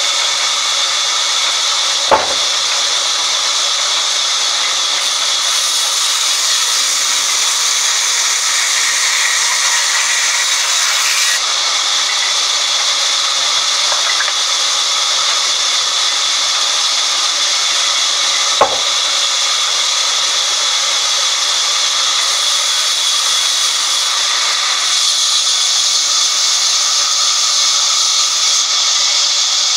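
Vertical band sawmill blade ripping lengthwise through a log, a steady high hiss of the blade in the wood. Two sharp clicks stand out, one about two seconds in and one a little past the middle.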